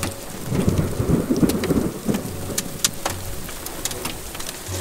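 Thunder from a supercell storm, a low rumble starting about half a second in and lasting around two seconds. Rain and scattered raindrops tick on a car's windshield throughout.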